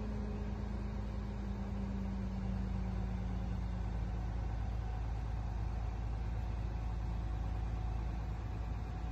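A vehicle engine running steadily at idle: a constant low hum with a steady tone that sinks slightly in pitch over the first few seconds, heard from inside a horse trailer.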